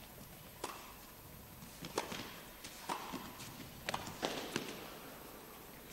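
Tennis ball struck by rackets and bouncing on the court in a rally: a series of sharp knocks, roughly a second apart, several closer together about four seconds in.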